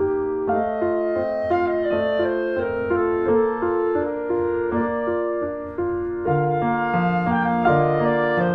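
Background instrumental music: a slow melody of held notes over a piano-like accompaniment, with a lower line coming in about six seconds in.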